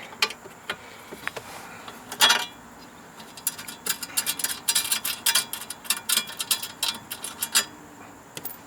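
Ratchet wrench with a 10 mm socket clicking as it loosens a bolt: a few separate metallic clicks, then a rapid run of clicking for about four seconds from the middle on, stopping shortly before the end.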